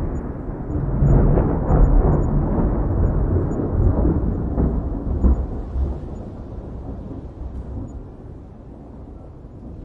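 Thunder rumbling with crackling peaks in the first few seconds, then dying away into a low, quieter tail.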